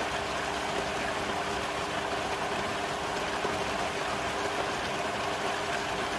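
Pool pump running steadily, pushing water through an XtremePowerUS 24-inch sand filter with its multiport valve set to rinse: a steady hum with a few fixed tones under an even rush of flowing water.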